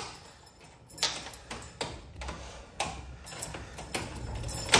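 Scattered clicks and light knocks of a door's lock and latch being worked as the balcony door is opened. A low rumble comes in about halfway through.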